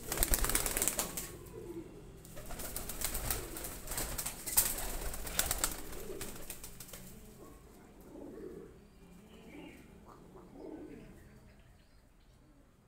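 Domestic pigeons' wings flapping in several noisy flurries through the first half. In the second half come a few soft, low coos.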